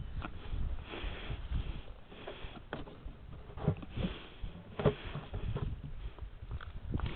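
A person breathing through the nose close to the microphone while walking, with soft footsteps and scattered clicks and rustles underfoot.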